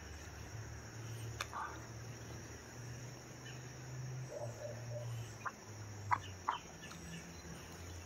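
Two dogs play-wrestling: a low rumbling play-growl that comes and goes, with a few sharp clacks of jaws snapping shut, the loudest two a little after six seconds in, about half a second apart.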